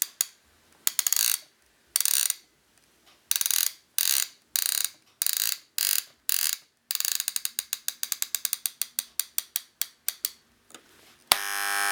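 Ratcheting clicks from a 1970s Citizen flip alarm clock's mechanism as it is wound toward the alarm time: short bursts at first, then a fast even run of clicks. About a second before the end the clock's electric alarm starts buzzing steadily.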